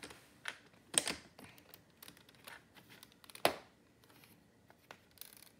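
Plastic Lego bricks clicking and rattling as fingers handle them and press them onto a brick build, with two sharper clicks, one about a second in and one past the middle.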